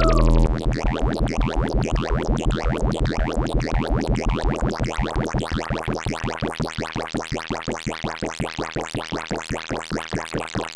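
Make Noise QPAS stereo analog multimode filter sounding a synthesizer patch: a falling sweep breaks off about half a second in, then gives way to a fast, even run of pulsed resonant tones that slowly grows quieter.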